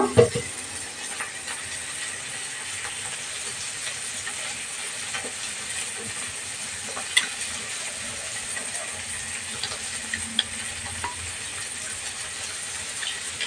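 A steel spoon stirring ground poppy-seed paste into water in a small steel bowl, with a few faint clinks of the spoon against the bowl over a steady hiss.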